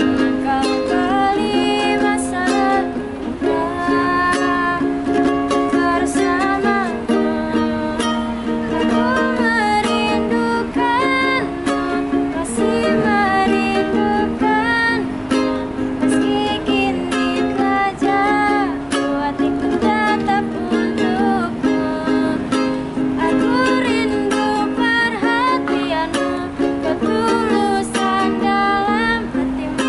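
A woman singing in Indonesian, accompanied by a strummed ukulele.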